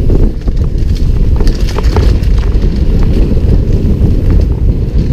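Downhill mountain bike rolling fast over a rough dirt trail: heavy wind rumble on the helmet-camera microphone, with scattered clicks and rattles from the bike jolting over stones and ruts.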